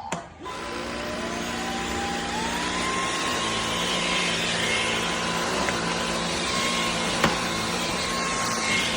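Cordless stick vacuum switched on: its motor winds up in pitch for about two seconds and then runs steadily, with a single click about seven seconds in.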